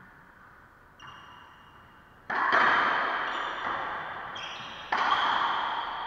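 Racquetball being played in an enclosed court: a light bounce about a second in, then two loud sharp ball strikes about two and a half seconds apart, each ringing on and fading slowly in the court's echo.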